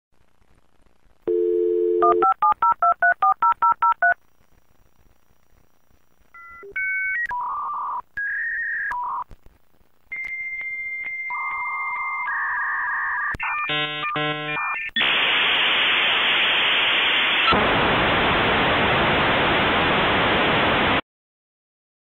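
Dial-up modem connecting over a phone line. It starts with a dial tone and a quick run of touch-tone dialing, then after a pause come the answering modem's steady tones and warbles and a short burst of chord-like probing tones. Several seconds of loud hiss follow as the modems train their equalizers and echo cancellers, and it cuts off suddenly near the end.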